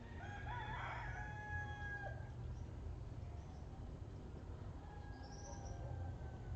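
A loud drawn-out bird call of about two seconds, wavering at first and then held on one note, with a fainter call and a short high chirp about five seconds in, over a steady low rumble.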